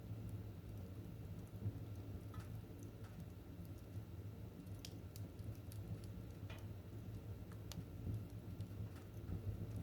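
Wood fire in a fireplace crackling, with about half a dozen sparse sharp pops over a steady low rumble.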